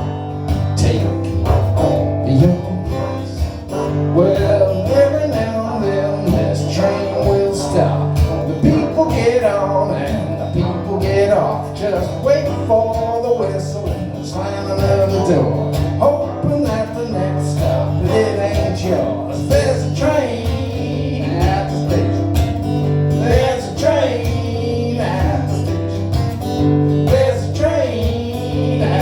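Acoustic blues song played live: strummed acoustic guitar under a lead line of bending notes, as an instrumental passage between sung verses.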